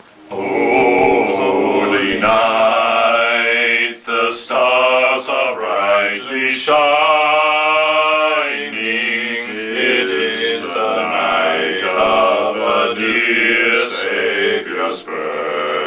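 Three men singing together in long held notes that bend and glide in pitch, starting suddenly about a third of a second in.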